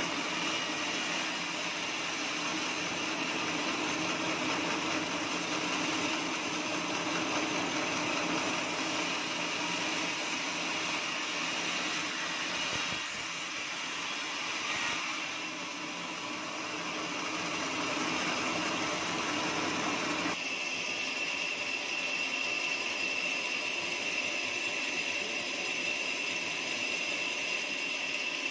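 Band sawmill sawing through teak, a steady mechanical sawing noise. About two-thirds of the way through, the heavier cutting sound drops away suddenly, leaving the saw running on with a thinner, steady high whine.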